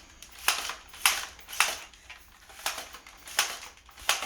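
Nerf blaster's air pump being pumped by hand: about six short, sharp strokes, roughly half a second to a second apart.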